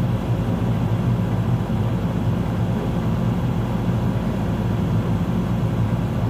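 Heavy construction machinery's engine running steadily, an even low rumble with no change in pace.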